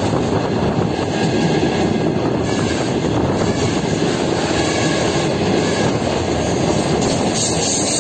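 Train running along the track: a steady, dense rumble of wheels on rails, with a brighter high hiss coming in near the end.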